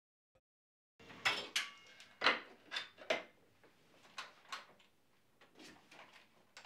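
A folding wheelchair being handled: irregular light clicks and knocks, some with a short metallic ring, starting about a second in.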